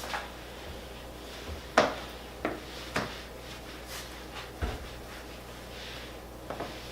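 A series of short knocks and clunks, about seven in all, the loudest about two seconds in: household items being handled and set down while tidying a kitchen.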